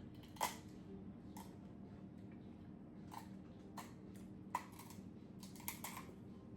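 Eating sounds: a scattering of short clicks and smacks from chewing and handling food, over a steady low hum.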